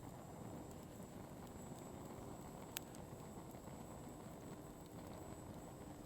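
Wood fire burning: a low steady rush of flame with scattered small crackles and one sharp pop about three seconds in.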